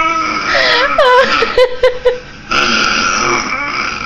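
Burps and gurgling, pitched vocal noises that slide up and down, coming in short bursts.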